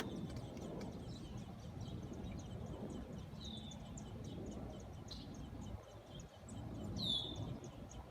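Small birds chirping: a quick run of short, high chirps, with a louder falling call twice, about three and a half and seven seconds in, over a low background rumble.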